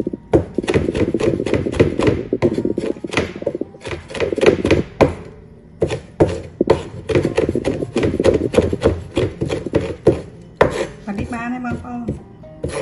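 Kitchen knife chopping red chilies on a wooden cutting board: quick runs of blade strikes, several a second, broken by short pauses.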